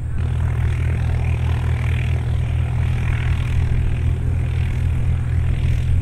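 CubCrafters Carbon Cub's piston engine and propeller running at low power as the light aircraft lines up on the runway, a steady low drone.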